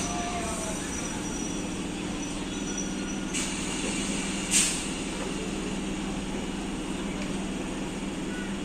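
Local passenger train running with a steady low hum. Two short hissing bursts come about three and a half and four and a half seconds in, the second louder.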